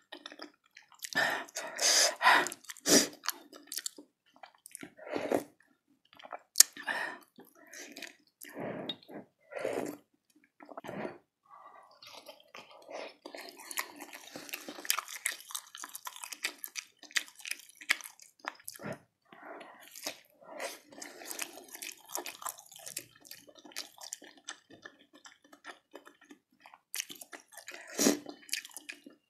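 Close-miked wet eating sounds of spicy beef meatball soup with beef fat: irregular chewing and slurping, with a wooden spoon scooping through the broth. The loudest bursts come in the first few seconds.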